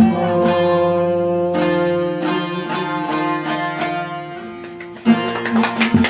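Bağlama (long-necked Turkish saz) playing a last instrumental phrase alone, its plucked notes ringing and dying away. About five seconds in, the playing stops and people start talking.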